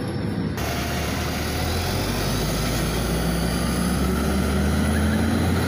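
LiAZ 5292 city bus pulling away from a stop: a muffled sound inside the cabin, then, about half a second in, the bus heard from the roadside, a steady low engine hum over a loud, even rush of noise. The engine note rises a little from about the middle as the bus accelerates.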